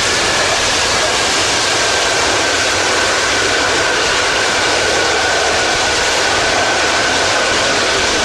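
Antonov An-225 Mriya's six Progress D-18T turbofan engines running as the aircraft taxis: a loud, steady roar with a high whine that slowly falls in pitch.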